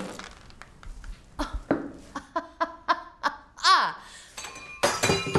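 A woman laughing in short bursts. Near the end comes a sudden loud shattering crash of something breakable, with ringing pieces after it.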